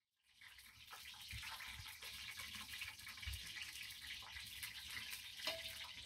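Steady hiss with fine crackling from a wood fire burning in a stove under a steaming pot.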